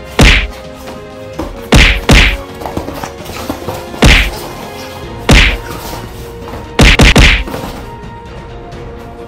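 Loud whack-like punch hits, about eight in all, coming singly, in a pair and in a quick run of three at uneven intervals, over background music with sustained tones.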